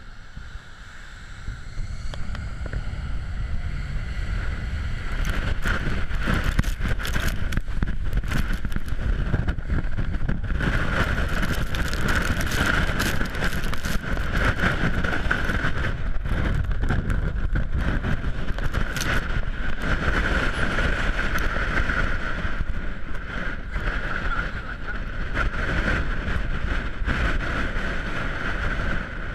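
Jet airliner engines spooling up over the first few seconds and then running steadily at high thrust for takeoff: a steady whine over a deep rumble, with jet blast buffeting the microphone.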